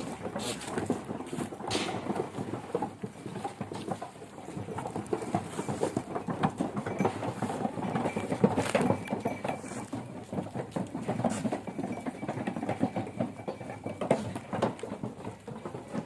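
Goats moving about in their pen: a dense, continuous clatter of small knocks, clicks and shuffling.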